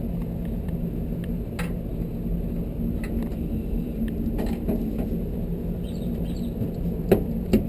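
A few scattered light clicks and knocks of metal parts being handled while a tankless water heater's burner assembly is worked loose, over a steady low hum.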